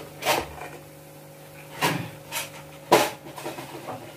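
A ladle knocking and clacking against a kadhai about five times, the loudest knock near three seconds in, as malpua batter is ladled into hot oil for frying. A steady low hum runs underneath.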